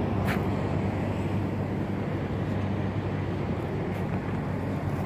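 Steady low rumble of vehicle engines and traffic with a constant low hum, typical of a busy truck stop.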